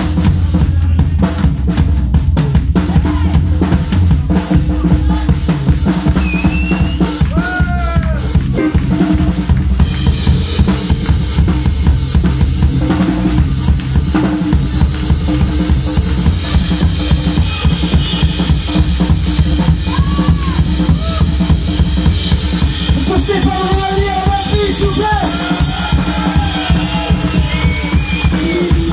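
Live blues band playing, the drum kit prominent: busy drumming on bass drum, snare and cymbals over the bass. A lead instrument bends notes now and then.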